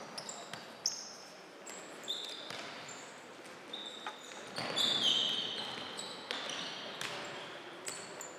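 Futsal play on a wooden sports-hall floor: players' trainers squeaking on the boards and the ball being kicked and struck, echoing in the hall. The busiest, loudest squeaking comes about five seconds in.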